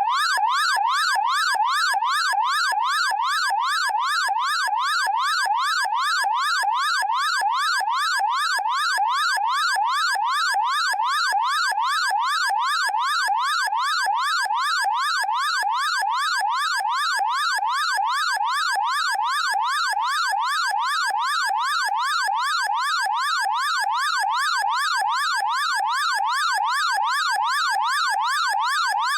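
Synthetic electronic alarm siren sounding steadily, its pitch sweeping rapidly up and down a few times a second in a fast yelping warble.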